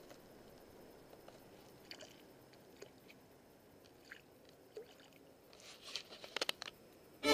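Quiet stretch with faint scattered clicks and rustles, and a quick run of sharper clicks about six seconds in.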